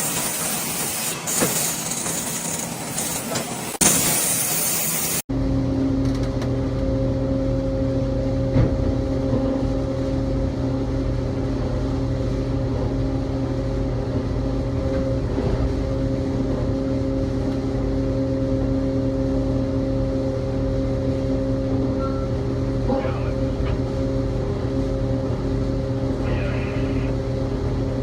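For about five seconds a saw cuts through timber with a loud, high hiss. Then an abrupt edit brings in a machine engine running at a steady speed, a constant low drone.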